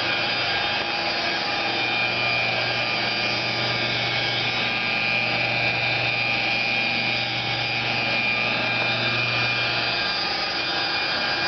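Electric rotary polisher running steadily, buffing a car's paint, with a constant high whine over a low hum.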